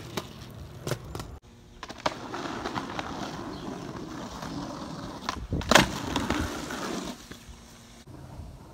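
Skateboard wheels rolling on pavement, a steady rumble through the middle, with several sharp clacks of the board hitting the ground; the loudest clack comes about six seconds in.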